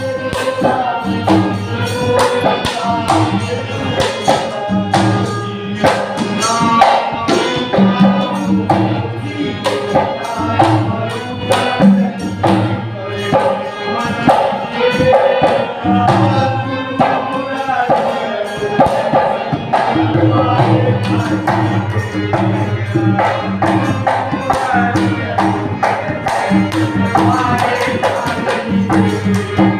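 Devotional bhajan music: a melody, apparently sung, over hand drums and jingling percussion keeping a steady beat.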